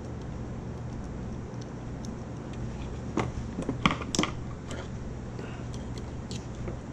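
Small sharp metal clicks and taps of a screwdriver working on a small metal-cased electronic module, a quick cluster of them about three to four seconds in and a few lighter ticks later, over a steady low hum.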